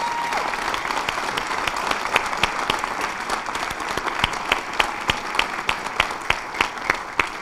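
Audience applauding, with one clapper close to the microphone standing out as sharp claps about three times a second.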